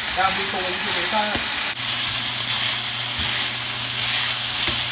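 Chopped steak and onions sizzling in a stainless steel skillet as a wooden spatula stirs them, with a single brief click a little under two seconds in.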